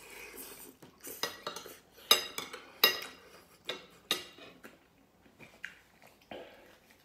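Metal spoon and fork clinking and scraping against a ceramic plate of rice, in a string of sharp clinks; the loudest come about two and three seconds in.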